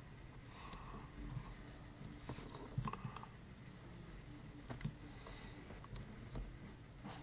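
Faint scattered clicks and taps of fingers handling a small circuit board and a battery plug with its thin wire lead.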